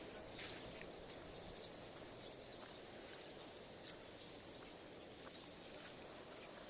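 Faint outdoor background noise, a steady low hiss, with a few brief, faint high chirps scattered through it.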